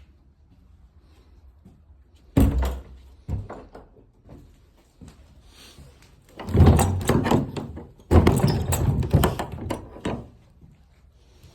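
Wooden thumps and rattling, like a door being handled: a sharp thud about two seconds in, a second knock a moment later, then two longer spells of clattering.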